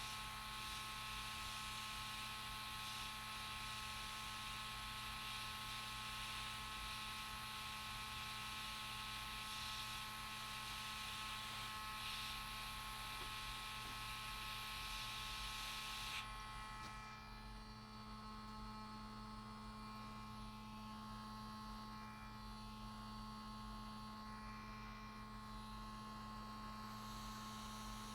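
Hot-air rework station blowing a steady hiss of air while a MOSFET is desoldered, cutting off suddenly a little over halfway through. A steady electrical hum with a few fixed tones runs underneath.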